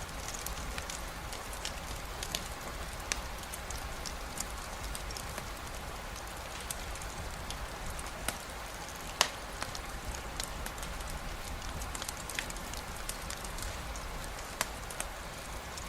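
Steady rain falling, an even hiss with scattered sharp drips and clicks; the loudest click comes about nine seconds in.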